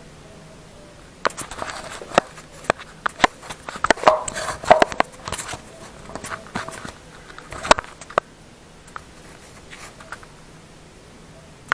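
Irregular taps, clicks and rubbing from a hand handling the camera right at the microphone. The sounds start about a second in, come thick for several seconds, then thin out to a few scattered ticks.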